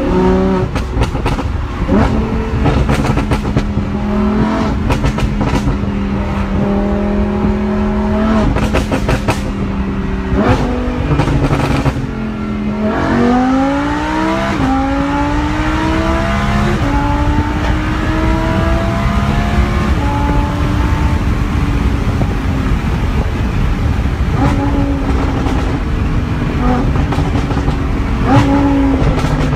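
Lamborghini Huracán LP610-4's V10 engine through a Fi Exhaust valvetronic catback, holding a steady note, then accelerating hard with rising pitch about thirteen seconds in, dropping back for an upshift and climbing again before settling to a steady cruise. Sharp cracks come in the first few seconds and again about nine seconds in.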